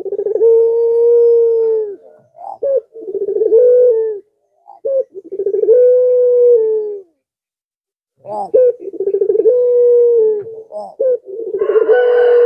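Puter pelung, a collared dove, cooing in a series of long drawn-out coos of a second or two each, broken by short notes. Near the end a rougher, higher-pitched sound overlaps the last coo.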